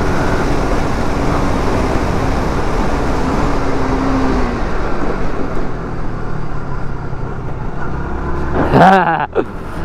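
Sport motorcycle riding at road speed, heard from the bike itself: engine running under a steady rush of wind and road noise.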